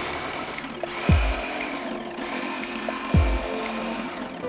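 Background music with a deep, falling bass beat about every two seconds. Under it, a reciprocating saw runs steadily as it cuts through an overhead wooden joist.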